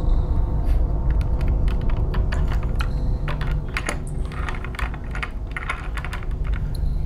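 A steady low rumble with a faint hum, under a run of irregular quick clicks and crackles that thickens in the middle and thins out near the end.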